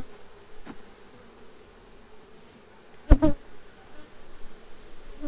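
Honeybee colony buzzing steadily in an open hive box, broken by a few sharp wooden knocks as the frames are handled, the loudest a quick double knock about three seconds in.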